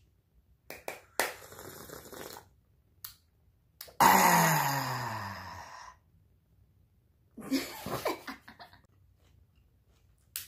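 A sip from a mug, then a long, loud throaty sound from a man that falls steadily in pitch over about two seconds and fades out.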